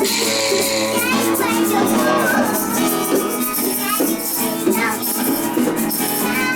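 Informal jam music with a shaker or maraca rattling in rhythm over pitched instruments.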